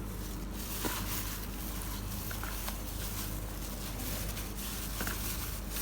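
Soft handling sounds as a flour-coated chicken piece is dipped in beaten egg: a few faint taps and squishes over a steady low hum.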